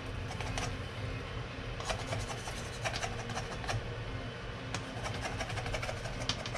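Egg omelette sizzling in oil in a hot frying pan, with a few short scrapes and taps of a spatula against the pan.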